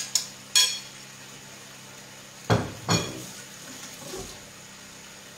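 A metal spoon clinks three times against a ceramic plate with a short ring. About two and a half seconds in come two heavier thuds as the plate is set down on a wooden chopping board.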